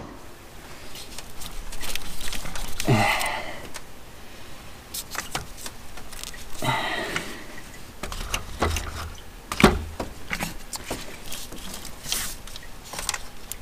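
Scattered clicks, taps and metallic clinks of hand work on engine parts and tools inside a minivan's engine bay, with a sharper knock about two-thirds of the way through.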